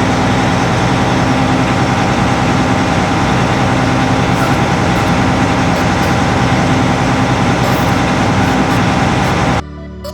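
Heavy diesel farm machinery running steadily at constant speed; it cuts off abruptly near the end.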